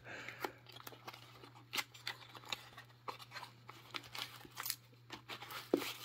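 Hands handling a padlock and its packaging: scattered small clicks and taps with light crinkling of plastic wrapping.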